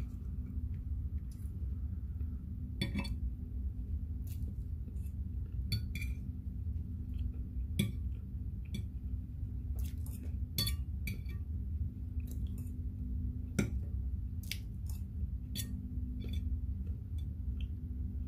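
Metal fork clinking and scraping on a ceramic plate while eating, short sharp clinks at irregular intervals. Under it runs a steady low hum.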